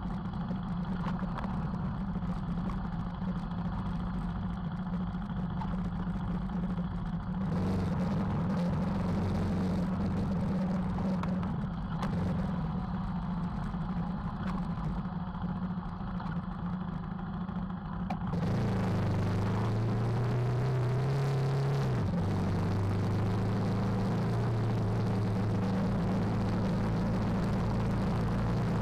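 KTM 390 Adventure's single-cylinder engine running steadily at low road speed on a dirt track, with wind and tyre noise. Past the middle it gets louder and the engine note climbs under throttle, then drops back about three seconds later and carries on steadily.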